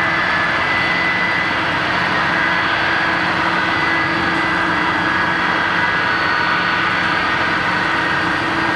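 Boeing 747-400's four turbofan engines running at taxi power: a steady jet whine with several held tones over an even rush.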